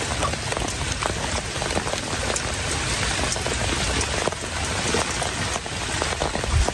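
Steady rain falling, with many sharp drop taps close to the microphone; a low thump near the end.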